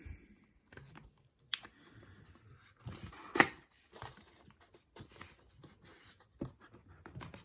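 Cardboard lighter box being handled and opened: quiet scattered scrapes and rustles, with a sharp tap a little over three seconds in.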